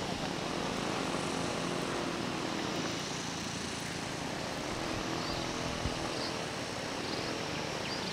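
An engine droning steadily at an even level.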